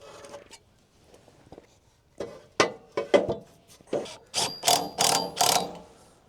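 An irregular series of sharp mechanical clicks and clanks, starting about two seconds in, some with a brief metallic ring.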